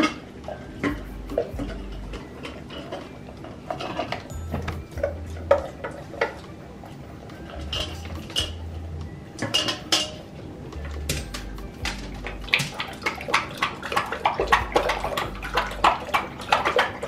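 A pit bull eating from a stainless steel bowl, its snout and the food knocking and clinking against the metal. From about twelve seconds in come quick, rapid ticks as it laps water from the second steel bowl.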